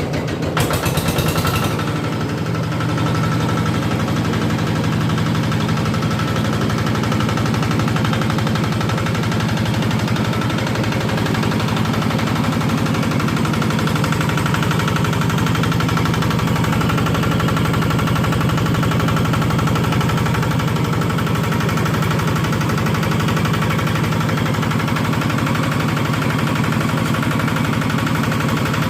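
APPO engine-driven organic fertilizer processor (compost shredder) running steadily at speed, with a fast, even chugging pulse. A short burst of harsh rattling noise comes about a second in.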